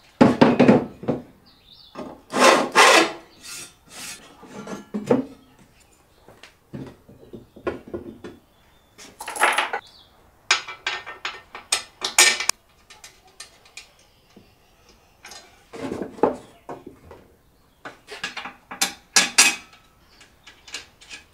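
A steel motor mounting plate and an electric motor being set down, shifted and bolted together on a wooden workbench: irregular knocks and scrapes of metal on wood and metal, the loudest right at the start.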